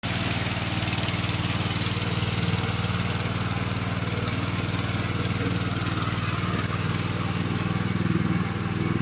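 Yamaha 7.5 hp gasoline engine of a tracked remote-controlled mower running steadily as it drives and cuts through tall dry grass, getting a little louder near the end.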